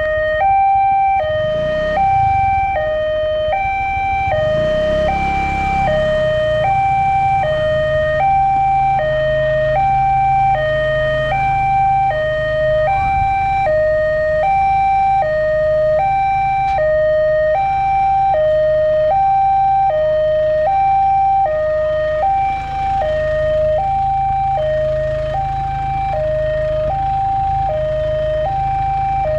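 Railway level-crossing warning siren sounding a two-tone electronic alarm that alternates evenly between E-flat 5 and G5, about a second on each note, the warning that a train is approaching the crossing.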